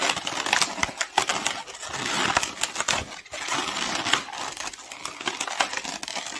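Inflated latex 260 modelling balloons rubbing against each other and the hands while a tulip head is knotted onto its stem, giving a run of irregular sharp creaks and crackles.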